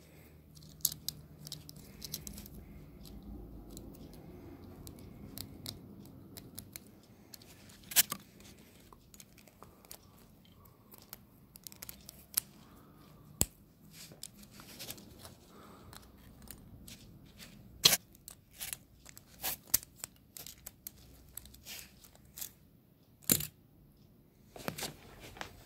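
Small plastic and metal spinning-top parts handled and clicked together by hand: irregular sharp clicks and snaps with light rattling, a few louder snaps standing out.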